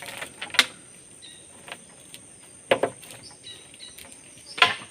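Three sharp knocks about two seconds apart, over a steady high-pitched insect drone.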